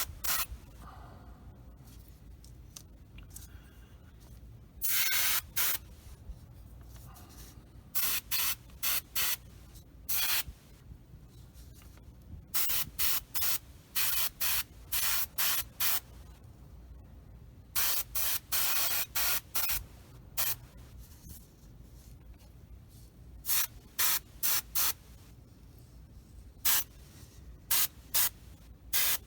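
Airbrush spraying thinned paint in many short hissing bursts, most a fraction of a second long and a few about a second long, with pauses between them. A steady low hum runs underneath.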